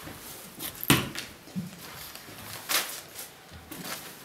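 Cardboard cards being handled, with two sharp taps, about a second in and nearly three seconds in, and a few fainter ticks.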